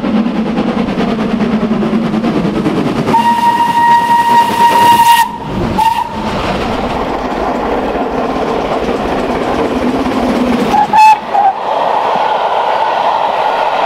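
Steam locomotive running with a steady noise of exhaust and wheels. Its whistle sounds one long steady note about three seconds in, then shorter blasts near the middle and again near the end.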